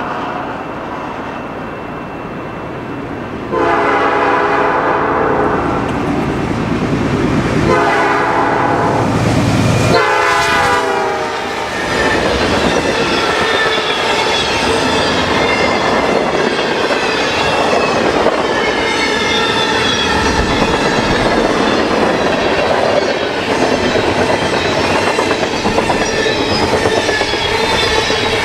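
Canadian National freight train passing at speed: the locomotive horn sounds in three blasts, its chord dropping in pitch about ten to eleven seconds in as the locomotive goes by. Then the freight cars roll past with a steady rumble and rhythmic clickety-clack of wheels over rail joints.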